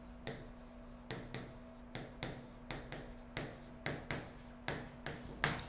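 Chalk writing on a blackboard: a string of faint, short taps and scrapes, roughly two or three a second, as letters are formed, over a faint steady hum.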